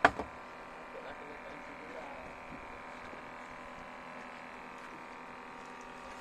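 Boat engine idling: a steady hum with several held tones that does not change.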